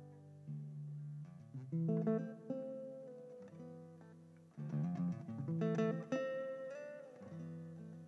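Acoustic guitar playing an instrumental passage of plucked notes and chords over held bass guitar notes, with one note gliding in pitch partway through.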